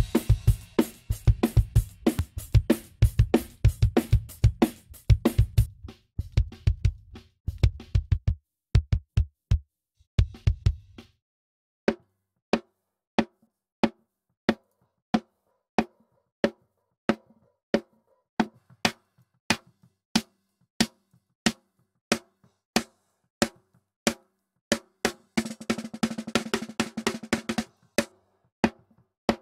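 A recorded drum kit playing back: the full kit with kick drum and cymbals for about the first eleven seconds, then it drops to single drum strikes repeating evenly, about one and a half a second, as individual drums are soloed. Near the end there is a short busier run of hits.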